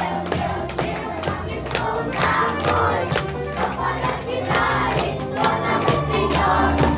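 A group of young children singing together over a backing track with a steady beat and bass line.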